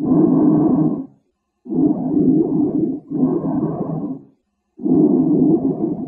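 Bronchial breath sounds recorded through a stethoscope: hollow, tubular breathing, higher-pitched than vesicular sounds. An exhalation ends about a second in; then come an inhalation and an exhalation of about the same length with a brief break between them, a half-second silence, and another inhalation. Normal over the trachea, but over the lung periphery a sign of pneumonia, pleural effusion or atelectasis.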